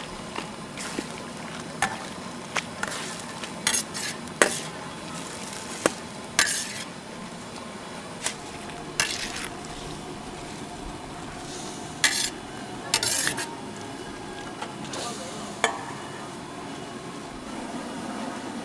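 A steel ladle stirs and scrapes a large steel wok of mushroom-and-shallot sauce simmering in oil. Irregular sharp clanks and short scrapes of metal on metal sound over a steady sizzle.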